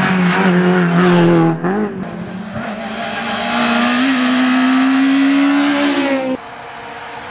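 Rally cars at full throttle: a Renault Clio's engine held high as it passes, lifting and changing gear about one and a half seconds in. Then a Citroën Saxo accelerates with a steadily rising engine note. That note cuts off abruptly near the end, leaving quieter, more distant engine sound.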